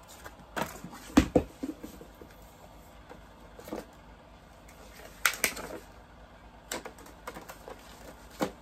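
A cardboard kit box and its paper contents being handled and unpacked: scattered clicks, taps and short rustles every second or two, the loudest pair just over a second in.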